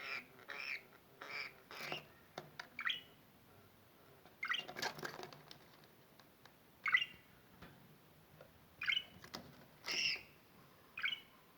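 Budgerigar calling: a string of short chirps and squawks, with a busier patch of chatter about five seconds in, then single sharp calls every second or two.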